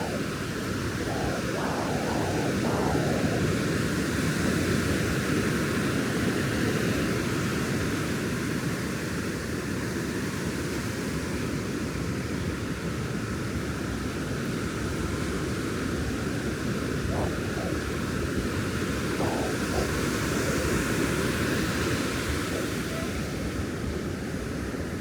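Ocean surf washing onto a beach: a steady rush of breaking waves that swells and eases over the seconds.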